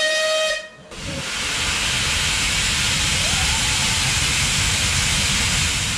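Steam locomotive whistle blowing one steady note that cuts off under a second in. It is followed by a loud steady hiss of steam being let off, with a low rumble underneath.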